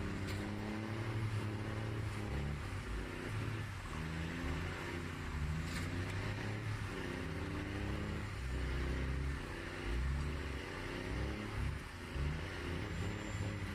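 Loaded log truck's engine labouring at low speed, its revs rising and falling as it crawls over rough ground.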